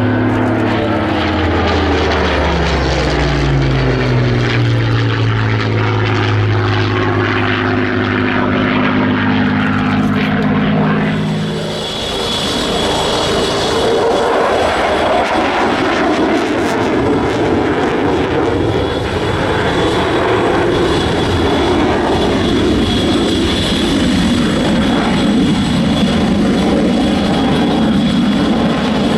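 A WWII piston-engined fighter flying a display pass, its propeller engine note dropping steadily in pitch as it goes by. About 12 seconds in, this gives way to a broader, steady rushing engine sound with a faint high whine.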